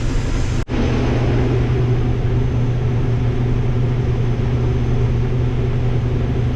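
Steady low drone of heavy farm machinery's engine running under load, interrupted by a momentary break less than a second in.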